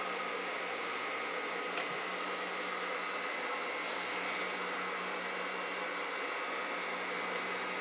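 Steady electric hum of a sewing machine's motor running, with a single light click about two seconds in.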